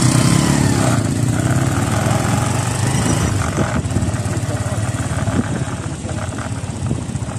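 Small vehicle engine running steadily as it drives along a dirt road, with wind rushing on the microphone.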